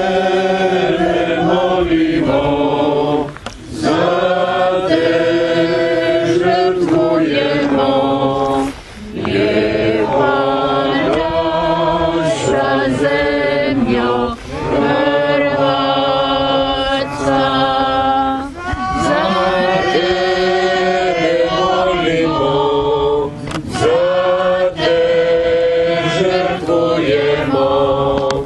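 A small congregation singing a Croatian offertory hymn together. The hymn goes in phrases of several seconds, with short breaks for breath between lines.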